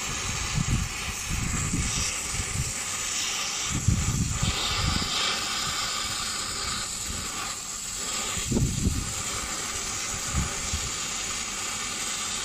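MAPP gas brazing torch flame hissing steadily against a copper pipe joint on an air-conditioner compressor, heating the braze so the pipe can be pulled free. Occasional low rumbles come and go.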